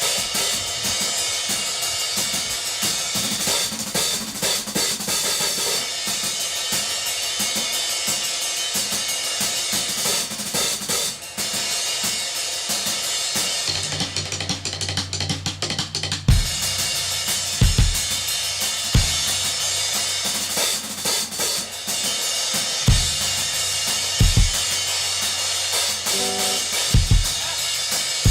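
A rock band playing an instrumental passage live, led by a drum kit with heavy cymbal wash and snare. About 14 seconds in, a low bass note is held for a couple of seconds, then separate bass drum hits come through.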